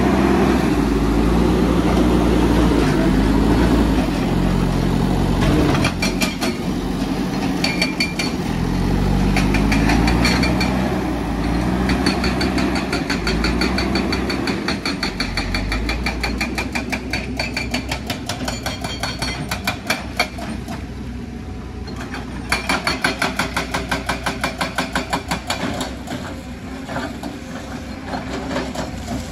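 JCB backhoe loader's diesel engine rising and falling in pitch under load as the front bucket pushes soil. About halfway through the engine drops back and a fast, even clatter takes over, breaking off briefly and then resuming.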